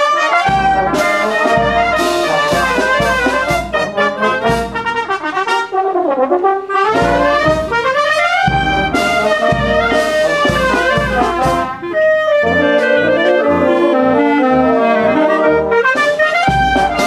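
Oaxacan brass band playing a march: trumpets and trombones carry the tune over a steady tuba bass. The band thins out and quietens for a few seconds near the start, then comes back in full.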